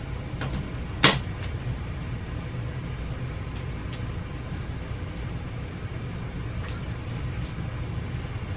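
One sharp knock about a second in, like something set down or knocked at a bedside table, then a few faint clicks and rustles, over a steady low hum.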